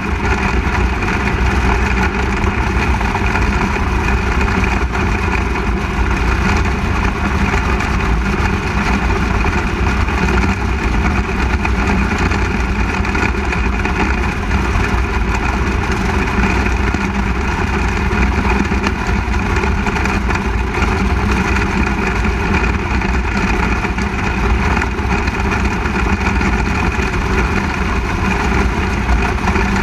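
360 sprint car's V8 engine running steadily on a dirt oval, heard loud and close from a camera mounted on the car.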